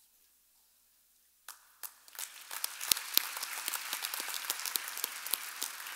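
Audience applause: a few scattered claps about one and a half seconds in, swelling into steady clapping from a large crowd.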